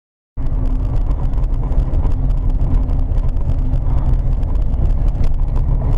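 Car driving, heard from inside the cabin on a dashcam: a loud, steady rumble of engine and road noise that cuts in suddenly about a third of a second in.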